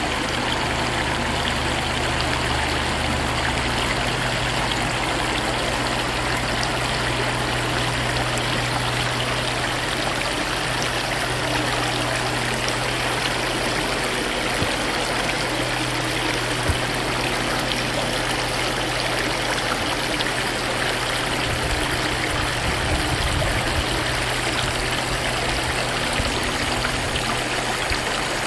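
Small stream of water running over a low step in its rocky bed: a steady rush of flowing water.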